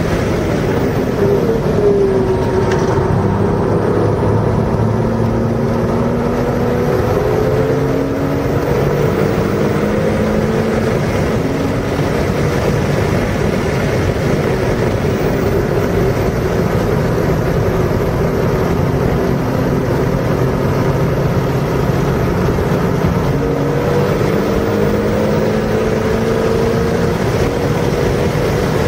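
A car engine pulling hard on a race track, its pitch climbing slowly for long stretches, dropping sharply about two seconds in and again a little past two-thirds through before climbing again, over steady wind and road noise.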